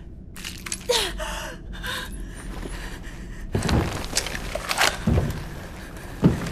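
A short gasp about a second in, then a run of clunks and thuds from just past halfway.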